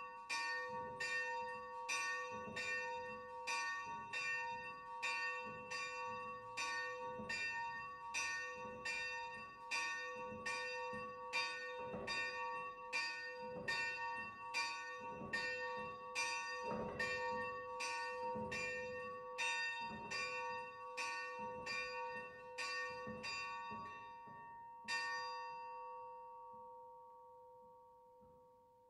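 Small church bell swinging and ringing, its clapper striking a little more than once a second. Near the end the strokes stop with one last stroke, and the bell's tone dies away.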